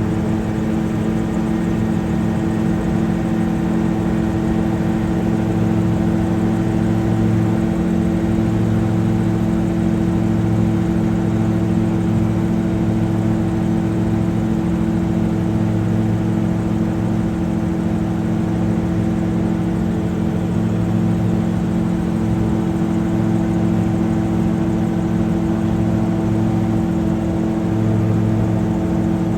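Multirotor drone's motors and propellers humming steadily, a constant high-pitched whine with a slow pulsing beat underneath.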